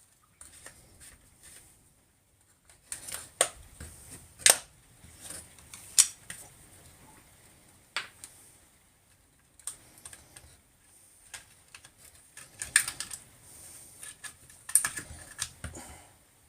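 Irregular small clicks and taps of tools and plastic parts being handled while dismantling a cordless angle grinder, with a few sharper knocks about four and a half, six, thirteen and fifteen seconds in.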